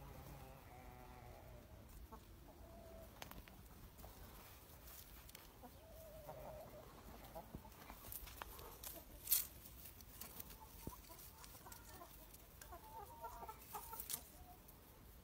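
Amrock chickens clucking faintly now and then, in short low calls. Scattered light clicks run through it, with one sharper click about nine seconds in.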